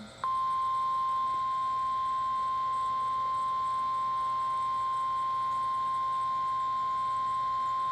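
Emergency Alert System warning alarm tone: the single steady tone of about 1 kHz used by NOAA Weather Radio, starting about a quarter second in and holding unchanged. It announces a severe thunderstorm warning.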